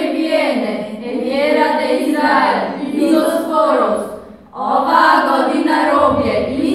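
A group of girls singing a song together without accompaniment, in long held phrases with a brief breath pause about four seconds in.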